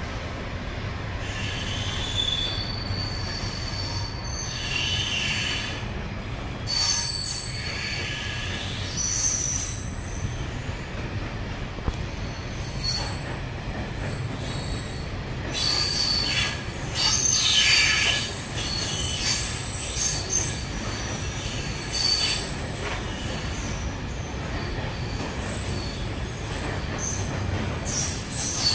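Loaded ballast train of yellow box wagons rolling past at low speed with a steady low rumble. High-pitched squeals from the wheels come and go, strongest about halfway through and again near the end.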